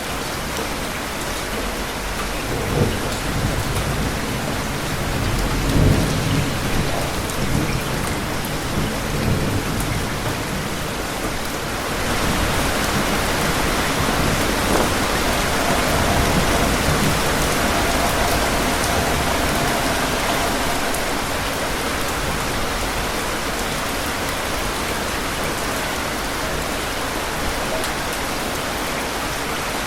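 Steady rain falling with thunder rumbling low through the first ten seconds, loudest about six seconds in. About twelve seconds in the rain grows louder, easing slightly again a little after twenty seconds.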